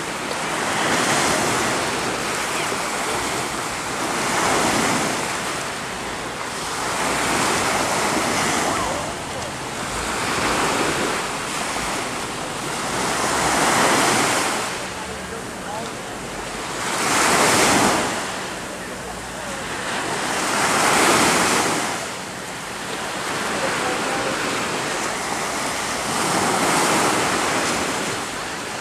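Ocean surf washing in along the shore, a steady rush that swells and fades in regular surges about every three to four seconds.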